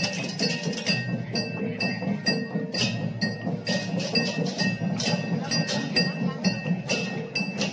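Okokan, big Balinese wooden cattle bells hung from carrying poles, clattering as the bearers swing them, mixed with clinking, ringing metal percussion. It keeps a steady beat of about two strikes a second.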